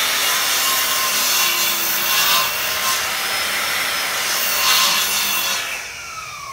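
Electricity sound effect: a harsh, raspy electric buzzing crackle that swells twice and fades away near the end.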